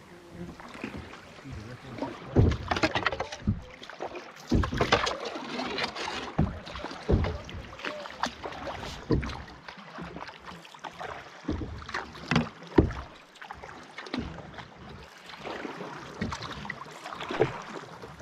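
Canoe paddling: paddles splashing and pulling through the water, with irregular knocks and thumps.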